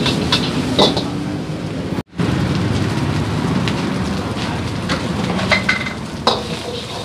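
Battered karaage chicken deep-frying in a wok of hot oil: a steady sizzle with scattered pops and crackles, cut off for a moment about two seconds in.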